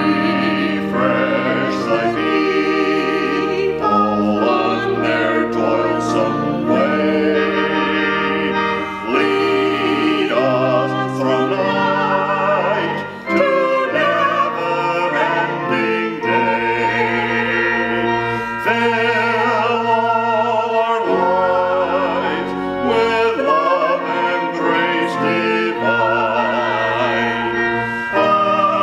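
A man and a woman singing a hymn together with vibrato, over pipe organ accompaniment holding sustained chords and low bass notes.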